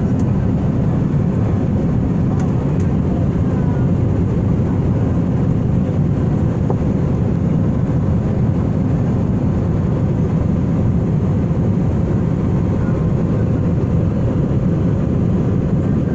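Steady jet airliner cabin noise at a window seat in flight: the even drone of the engines and the rush of air past the fuselage, heaviest in the low range and unchanging.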